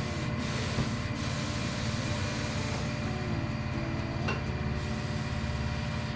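A steady mechanical running sound with a low, pulsing hum, like a motor under way, with a short rising whine about four seconds in.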